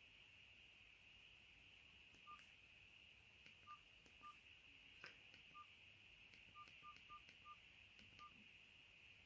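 Faint keypad beeps from a TKEXUN G9000 flip phone as its menu buttons are pressed: about ten short beeps, all at one pitch and irregularly spaced, some in quick runs, with faint clicks of the keys.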